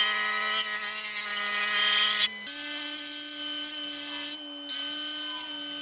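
Metal lathe running, its motor whining steadily while the cutting tool turns down the end of a 1-inch steel rod, with patchy high hiss and squeal from the cut. The whine jumps to a higher pitch about two and a half seconds in.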